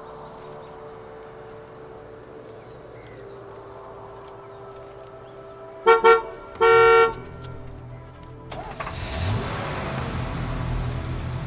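Vehicle horn honking: two short toots and then a longer one. A few seconds later a steady rushing noise rises.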